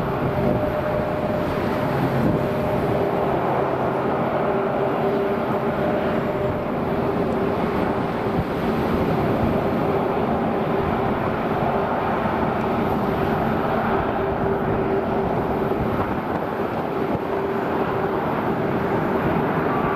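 A US Navy Boeing E-6B Mercury's four CFM56 (F108) turbofan engines at high power on departure: steady jet noise with a steady whine running through it.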